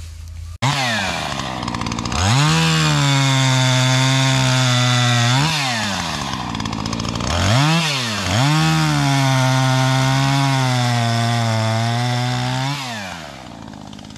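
Chainsaw cutting a fallen birch log: it speeds up to full throttle and holds there, drops back for a moment about five seconds in, then runs at full throttle again before winding down near the end.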